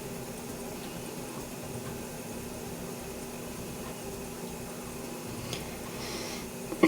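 Steady room tone: an even background hum and hiss with no distinct events.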